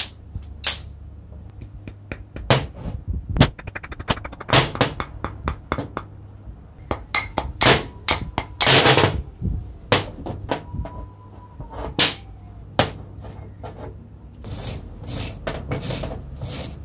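Metal parts of a vintage Black & Decker reciprocating saw being handled and set down on a metal workbench: scattered sharp clicks and knocks, with a fast rattle about three seconds in and a short rushing burst about halfway. Near the end comes a run of quick scrubbing strokes from a wire brush cleaning the inside of the aluminium gear housing.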